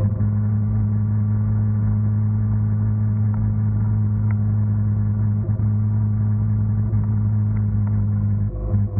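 Small 49cc two-stroke scooter engine running at steady throttle under way, a constant drone that holds one pitch throughout.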